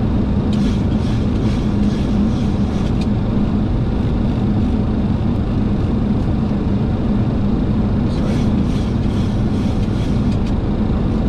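Steady flight-deck noise of a Boeing 737-800 descending on approach: airflow over the cockpit and engine noise, with a steady low hum under it. Faint light clicks come in two stretches, near the start and near the end.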